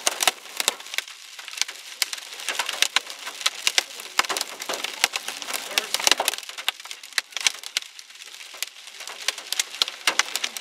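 Hailstones pelting the vehicle's roof and windshield, heard from inside the cabin: a dense, irregular clatter of sharp cracks, some hits much louder than others.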